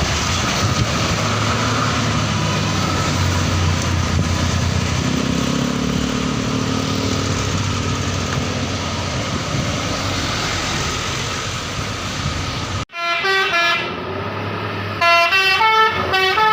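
A bus's engine and road noise with a steady low drone as it goes by; then, after an abrupt cut near the end, a telolet basuri musical bus horn plays a fast tune of short stepped notes.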